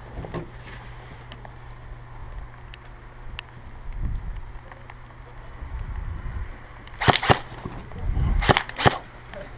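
Airsoft gunfire: four sharp cracks in two pairs, a quick pair about seven seconds in and another pair a second and a half later, over dull thumps of the player moving and handling gear.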